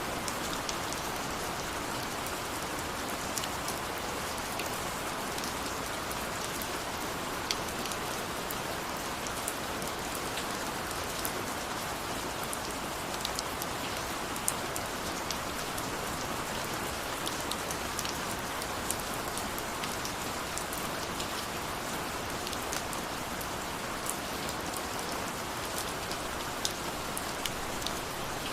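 Steady rain with a dense even hiss and many small, sharp drops ticking individually on a surface.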